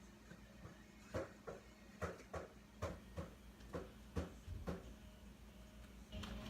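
Hands and feet landing on the floor during a burpee: a run of about nine faint knocks, roughly two a second, starting about a second in.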